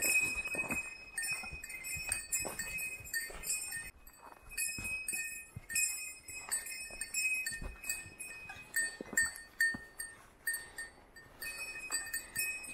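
A small bear bell on a hiker's pack jingling over and over in time with walking, with a couple of short breaks, mixed with footsteps on the forest trail.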